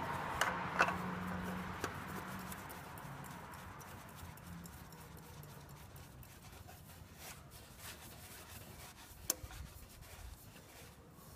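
Hand-fitting sounds as a new Parts-Mall spin-on oil filter is screwed onto the engine: a few light clicks and scrapes, loudest in the first two seconds, then fainter handling.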